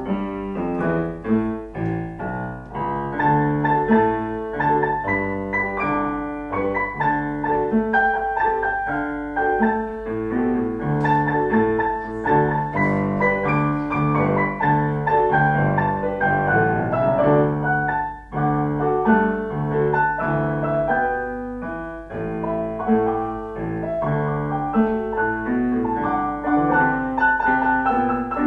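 Piano music from keyboard instruments, with many notes and chords sounding together continuously. There is a brief dip in loudness about eighteen seconds in.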